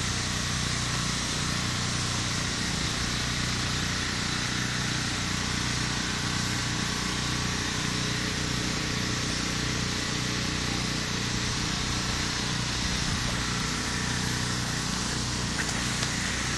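A steady motor hum with a constant hiss, running evenly without change.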